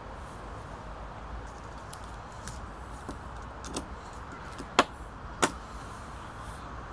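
Steady outdoor background noise with a low rumble, broken by a handful of short sharp clicks in the middle, the two loudest a little over half a second apart near the end.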